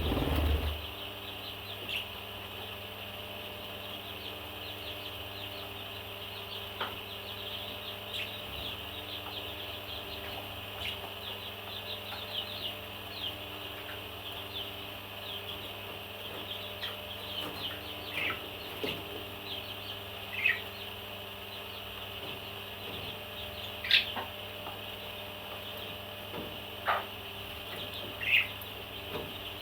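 A flock of parrots chirping and chattering continuously, a dense high twittering, with several louder single calls standing out in the second half.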